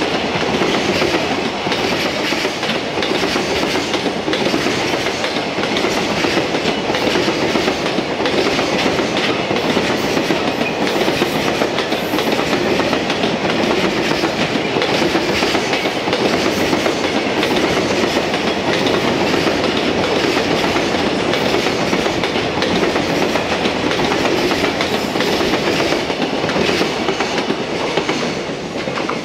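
A long freight train of loaded container flatcars rolling past: a steady, loud noise of steel wheels on the rails with repeated clacks over the rail joints. It falls away near the end as the last wagons go by.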